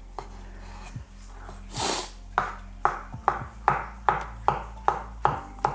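Kitchen knife dicing avocado on a cutting board: a scrape of the blade about two seconds in, then steady chops of the knife on the board, about two and a half a second.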